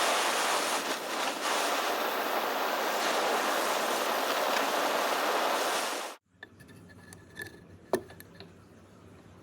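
A steady, loud rushing hiss that cuts off abruptly about six seconds in, followed by a few light clicks and one sharp click.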